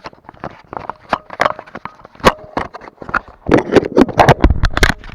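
Plastic clicks, knocks and scrapes of an action camera being handled and shut into its clear plastic waterproof case, close to the microphone, with a dense run of louder knocks about three and a half seconds in.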